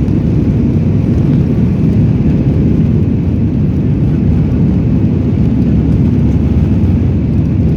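Steady low rumble of an airliner's engines and airframe heard from inside the passenger cabin, even in level throughout.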